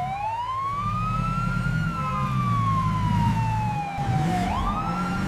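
Police car siren wailing: its pitch rises slowly, falls away, then climbs sharply again near the end, over a steady engine hum.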